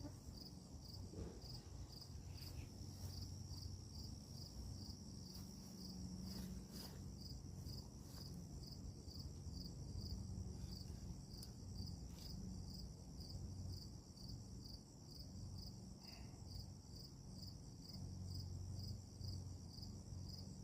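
Crickets chirping in a steady, even rhythm of short high chirps, over a faint low hum, with a few faint clicks.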